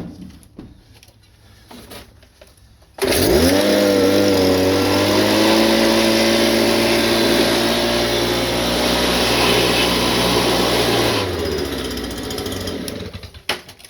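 Blower switched on about three seconds in, its motor spinning up quickly to a steady whine over a rush of air as it blows dust out; it is switched off about eleven seconds in and winds down.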